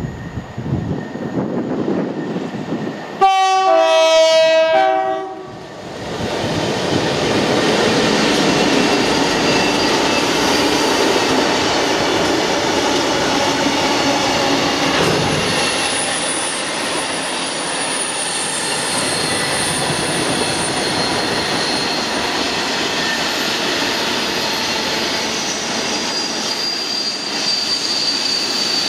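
Class 60 diesel locomotive sounding its two-tone horn about three seconds in, a high note then a lower one. It then passes close by with its freight train of covered steel-coil wagons, a loud steady run of wheel-on-rail noise, with a thin high squeal of wheels from about halfway on.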